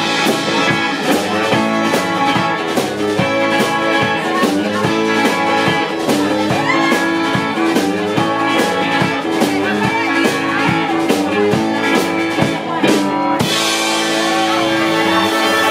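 Live country band playing: fiddle, electric guitars and a drum kit on a steady beat. Near the end the drums stop and the band holds a final chord as the song finishes.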